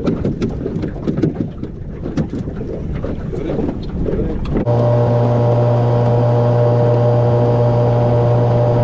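Wind on the microphone with small clicks and knocks of handling, then, cutting in abruptly about halfway through, the steady drone of a small aluminium boat's outboard motor running under way.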